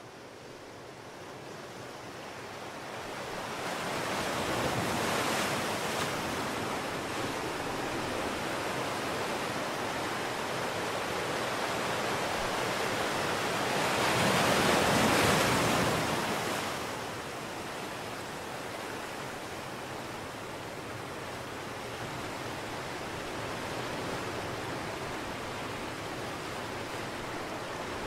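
Rushing sea-surf and wind noise with no distinct events, swelling louder about five seconds in and again about fifteen seconds in before settling back.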